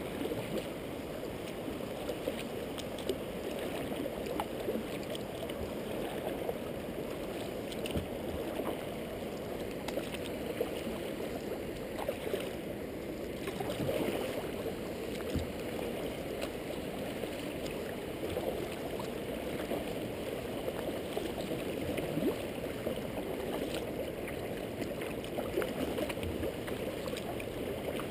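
Water gurgling and lapping against a kayak's hull as it is paddled, with the paddle blade dipping into the river. A steady wash of water noise with small scattered splashes and ticks.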